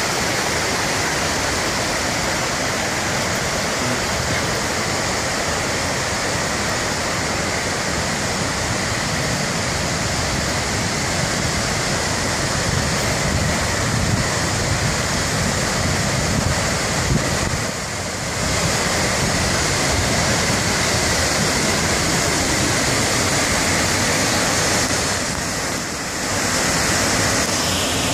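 Waterfall and whitewater creek rushing: a loud, steady roar of falling water that dips briefly twice.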